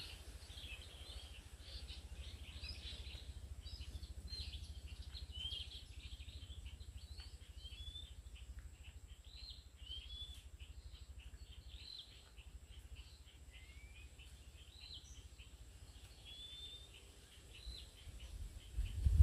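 Forest birds singing and calling: a dense run of short chirps and rising whistles, over a steady low rumble.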